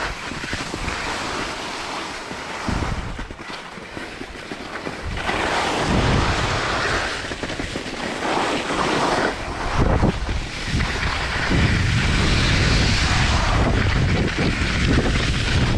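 Wind buffeting the microphone and the hiss and scrape of Elan skis sliding over packed snow on a downhill run, growing louder about five seconds in.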